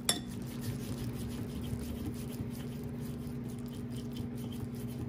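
Butter and powdered sugar being creamed by hand in a glass bowl: soft, light scraping and tapping of the utensil against the glass, about twice a second, over a steady low hum.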